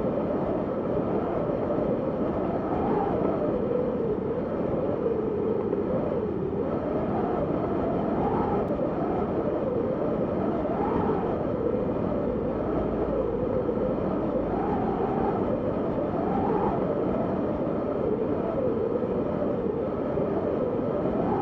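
Howling wind of a snowstorm: a steady rushing roar with a howl that rises and falls in pitch every second or two.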